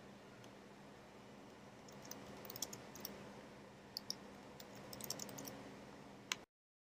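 Faint, scattered clicks of a computer mouse and keyboard over a low steady hum, with a sharper click just before the audio cuts out.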